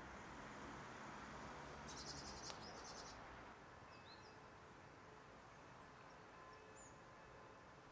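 Faint high-pitched calls of small songbirds: a short, fast rattling trill about two seconds in, then a few thin, brief chirps around the middle and near the end.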